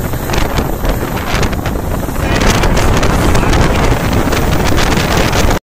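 Loud wind rushing over the microphone from a moving train, with the train's running rumble underneath; it cuts off suddenly near the end.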